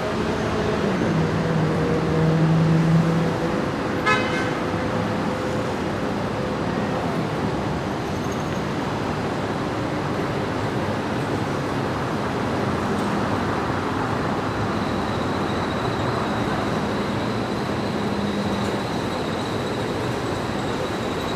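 Rush-hour street traffic: a steady rumble and hiss of cars and buses, with a car horn sounding about two to three seconds in and a short sharp sound a second later. A thin high whine joins about fifteen seconds in.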